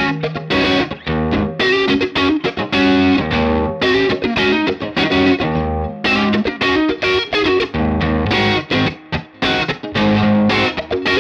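Fender Stratocaster electric guitar played through an amplifier and a Universal Audio OX box's speaker-cabinet and microphone simulation: a quick run of picked lead notes.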